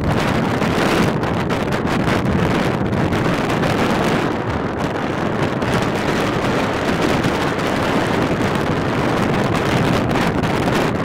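Strong wind buffeting the microphone, a steady loud rumbling noise.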